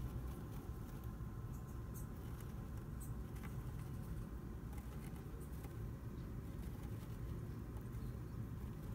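Faint, scattered rustles and small clicks of a Russian dwarf hamster shuffling and sniffing through loose chopped-straw bedding, over a steady low background rumble.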